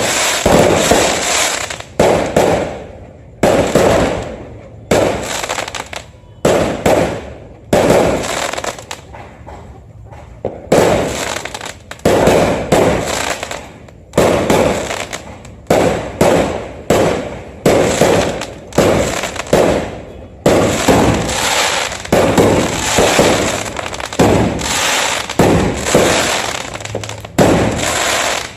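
Fireworks going off in quick succession: a sharp bang every second or two, each dying away with a crackling tail before the next.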